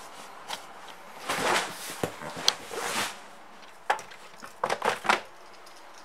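Papers rustling and a plastic file tray knocking and scraping as someone rummages through it by hand, in several short irregular clusters of rustles and knocks.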